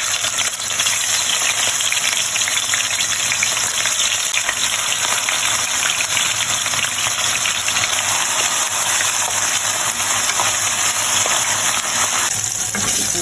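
Vegetarian fish slices frying in hot oil: a steady, loud sizzle with dense crackling, thinning slightly near the end.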